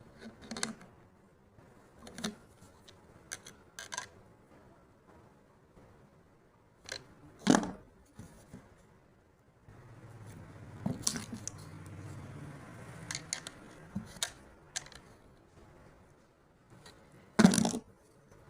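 Scattered knocks and taps, with two louder knocks, one about seven seconds in and one near the end, and a low steady hum for a few seconds in the middle.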